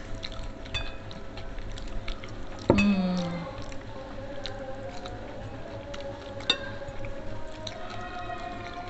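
Two people chewing rice and side dishes eaten by hand, with many small clicks and mouth sounds. About three seconds in comes a sharp knock and a brief low hum.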